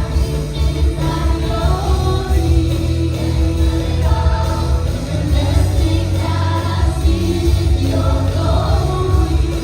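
A church worship team singing a worship song together over band accompaniment with a strong, steady bass.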